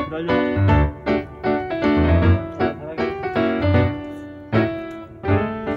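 Background music: a light piano tune over a bass line, notes struck in quick succession.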